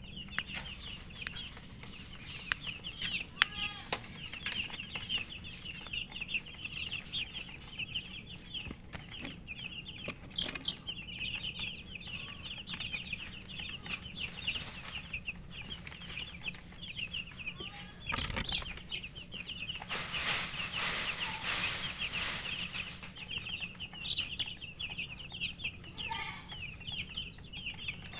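A flock of chicken chicks peeping continuously in many short, high chirps, with scattered sharp taps of pecking at feed. A thump comes about 18 seconds in, followed by a louder stretch of rustling noise lasting a couple of seconds.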